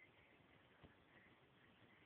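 Near silence: faint background hiss with one soft knock a little under a second in.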